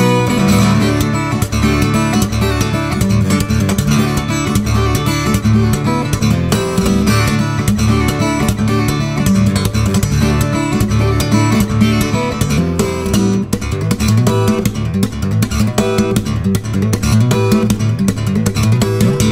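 Background music: acoustic guitar playing a steady run of plucked and strummed notes.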